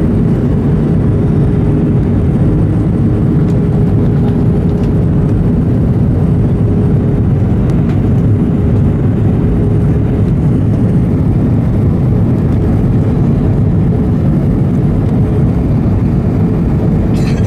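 Cabin noise of an Airbus A320 airliner: a steady low rush of engine and airflow noise with a constant hum, unchanging throughout.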